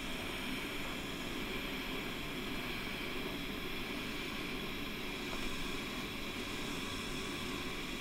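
Roborock S4 robot vacuum running with a steady whirring hiss as it drives onto its charging base, returning to dock at the end of a clean.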